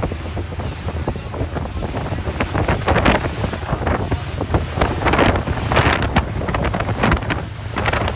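Wind buffeting the microphone on the open deck of a moving ferry, with a constant low rumble. Irregular gusts come in from about two and a half seconds in.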